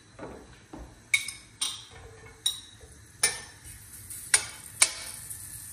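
Strips of guanciale going into a hot, dry stainless-steel frying pan and being pushed about with a fork: about six sharp clicks of the metal fork against the pan, with a faint sizzle starting about halfway through as the meat begins to cook.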